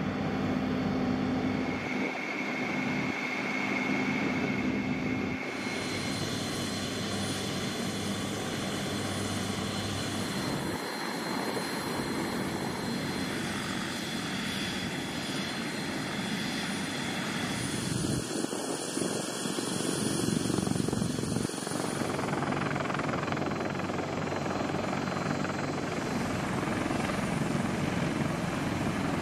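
Helicopter turbine engines and rotors running, a steady whine over rotor noise. The sound changes abruptly several times as different shots are cut together.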